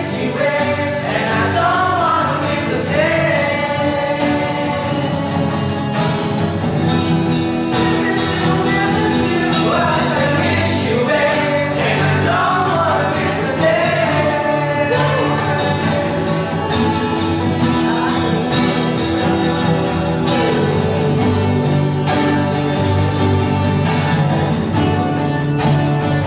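A small group of young male singers singing a pop ballad together, accompanied by two acoustic guitars.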